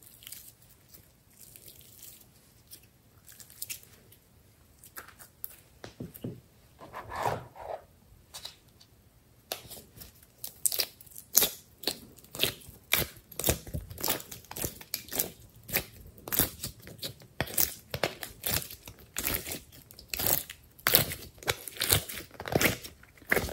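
Slime handled by hand: quiet squishing and stretching, then from about ten seconds in slime pulled out of a silicone ice-cube tray, with a rapid run of sticky clicks and pops, several a second.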